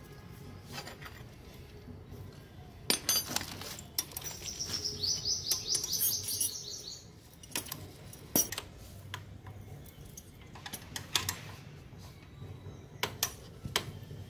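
Scattered light metal clinks and taps from hand tools and a metal exhaust clip being worked onto a motorcycle's slip-on muffler joint. A quick run of high chirps comes about five seconds in.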